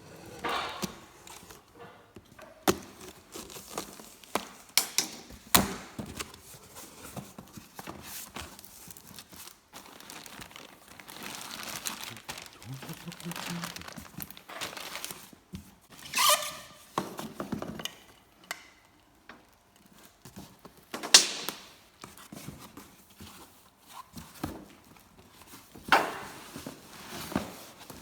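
Irregular knocks and clunks with rustling between them, as of objects being handled and set down.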